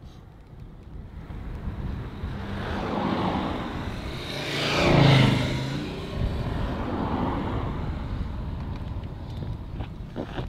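A car driving past on a narrow road: engine and tyre noise swell to a peak about halfway through, then fade.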